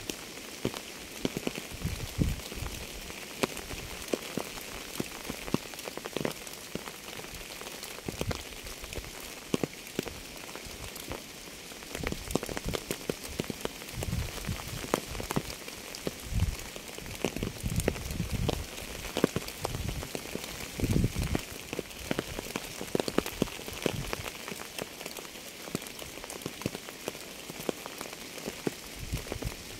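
Steady rain, dense individual raindrops striking close by over a continuous hiss, with heavier, deeper drop impacts now and then, more of them around the middle.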